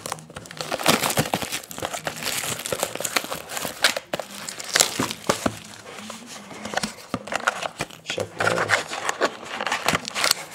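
Plastic wrapping on a trading-card hobby box crinkling and tearing as the box is unwrapped and opened and a foil card pack is handled, with many sharp crackles and clicks throughout.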